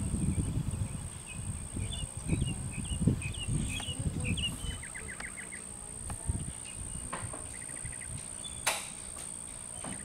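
Open-air ambience: a steady high-pitched insect buzz throughout, with low rumbling in the first few seconds. Scattered short bird chirps and quick trills are heard, and there is one sharp click near the end.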